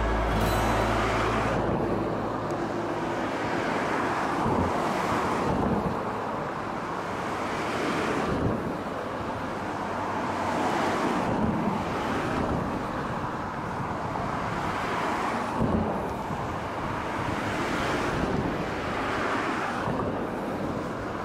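Outdoor wind and ambient noise on the microphone, a steady hiss that swells and fades every three to four seconds.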